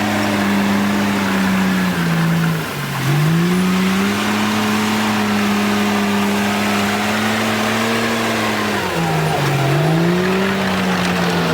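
Komatsu bulldozer's diesel engine running hard, its pitch sagging briefly about three seconds in and again near nine seconds, then climbing back up as the engine recovers.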